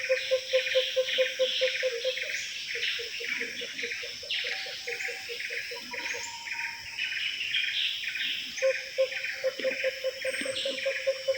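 Borneo rainforest chorus of calling birds: rapid high chirps repeated several times a second over a low note pulsing about five times a second. The low note drops out about two seconds in and returns steadily near the end.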